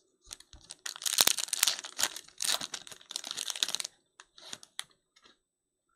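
Foil wrapper of a Panini Select football card pack crinkling and tearing as it is ripped open by hand. The crackle comes in dense bursts for about three seconds, followed by a few light rustles.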